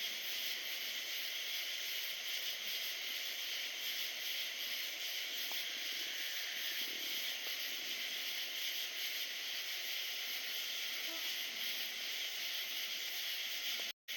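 Steady chorus of night insects: a continuous high, shrill hiss with no break.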